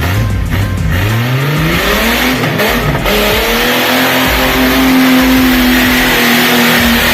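Off-road vehicle's engine revving up over about two seconds, then held steady at high revs, with a rushing hiss alongside.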